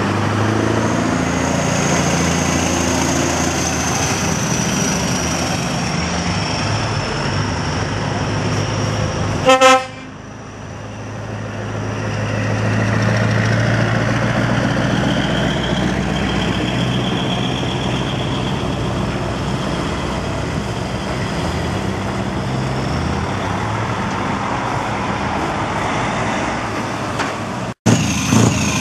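Heavy truck diesel engines running as trucks drive slowly past, with one short, loud air-horn blast about a third of the way in. After the horn, the engine sound builds again as a truck pulls by.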